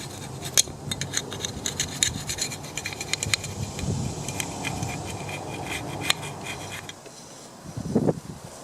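Scraping and scratching on metal with many small clicks, as old sealant is scraped off a metal engine cover; it goes quieter about seven seconds in.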